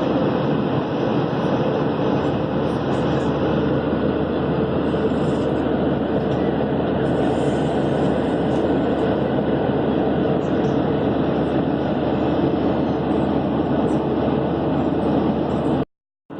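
Steady cabin roar inside a Boeing 737-800 airliner in flight: engine and airflow noise heard from a window seat, cutting off abruptly near the end.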